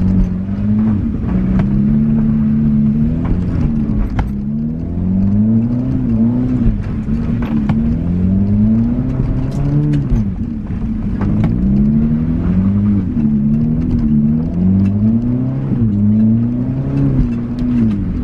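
Riding lawnmower engine revving up and falling off again and again as it is driven hard, with scattered knocks and rattles.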